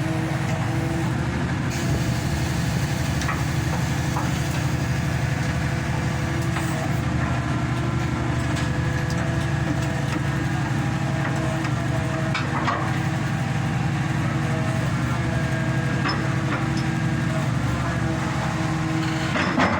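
Engine and hydraulic power unit of a hydraulic static pile driver running steadily, with a few light knocks, the clearest near the end.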